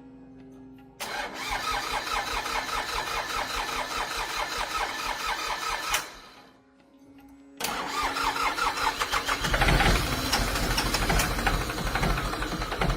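Small vintage Honda motorcycle engine starting about a second in and running, cutting out around six seconds, then starting again. It runs louder and heavier from about two-thirds of the way through.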